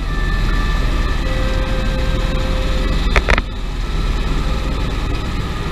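Steady helicopter engine and rotor drone heard inside the cabin in flight, with a brief clatter a little after three seconds in.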